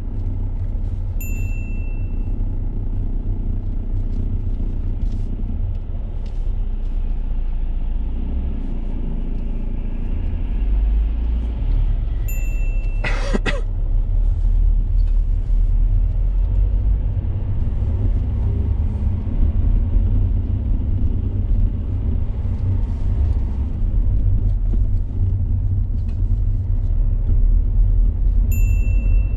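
Steady low rumble of a car's engine and tyres, heard from inside the cabin while driving. A few short high beeps sound about a second in, about 12 seconds in and near the end, and there is a brief sharper sound about 13 seconds in.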